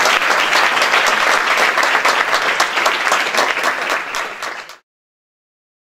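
Audience applauding, a dense patter of many hands clapping that fades and stops just before five seconds in.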